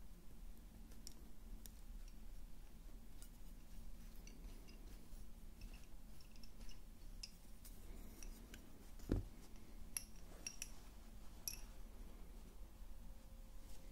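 Wooden lace bobbins clicking lightly against each other as they are handled, with small metal tools being set down on the lace pillow. The clicks are faint and scattered, with a soft thump about nine seconds in.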